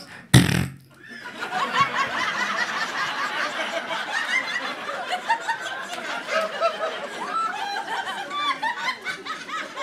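A comedy club audience laughing, many people snickering and chuckling together for several seconds. It follows one short, loud blast into the microphone about half a second in.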